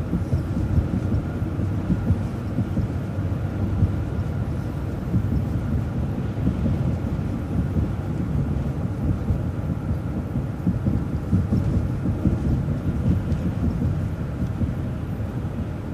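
City transit bus in motion, heard from inside the cabin: a steady low rumble of engine and road noise.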